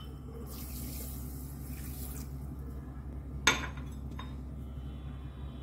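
Water poured from a ceramic mug into a bowl of chia seeds for about two seconds, then a sharp clink about three and a half seconds in as the mug is set down on the stone counter, with a smaller knock soon after.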